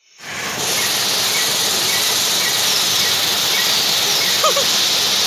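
Steady rushing of a small waterfall pouring into a rock pool, fading in over the first half second. A few faint bird chirps sound over it, with a short call about four and a half seconds in.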